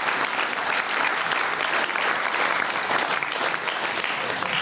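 Studio audience applauding, a dense patter of many hands clapping at an even level, which breaks off suddenly near the end.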